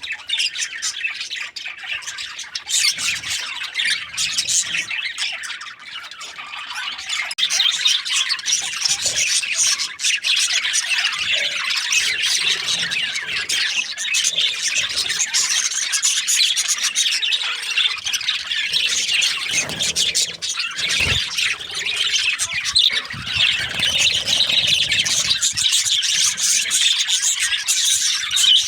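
Budgerigars chattering and squawking without a break, a dense mix of high chirps and harsh squawks.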